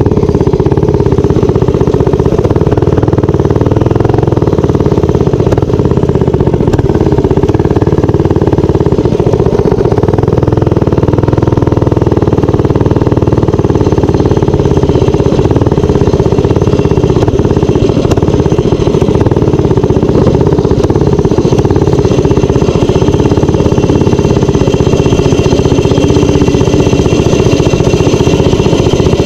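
Minibike's small engine running steadily while being ridden, its pitch wavering a little with the throttle.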